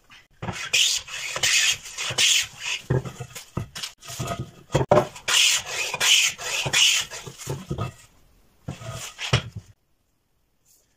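Wooden hand plane pushed in quick repeated strokes along the edge of a board, each stroke a short hissing shave as a curl of wood peels off. The strokes stop suddenly near the end.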